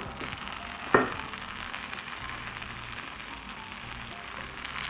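Hot, just-baked phyllo baklava sizzling with fine crackles where room-temperature sugar syrup has been poured over it: the sound of cool syrup meeting the hot pastry. A single sharp knock about a second in, over soft background music.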